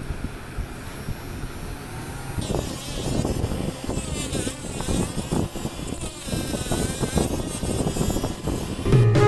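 Small 12V DC motor of a homemade PVC-pipe rotary tool running. About two and a half seconds in, its small cutting disc starts grinding into a grey plastic sheet with a rough, uneven rasp and a wavering whine. Music starts just before the end.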